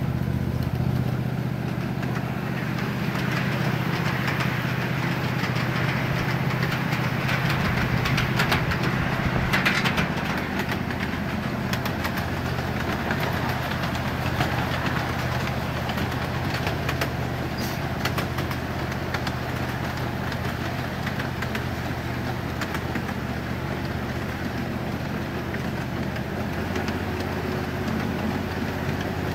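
Ride-on miniature railway train running along its track: a steady low engine drone under the clatter and clicking of its small wheels on the rails, a little louder around eight to ten seconds in.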